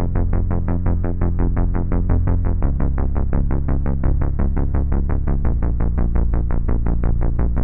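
An 80s-style synth bass made in the Serum software synthesizer plays a fast, even run of short repeated notes with a deep sub underneath. The note changes about a third of the way in.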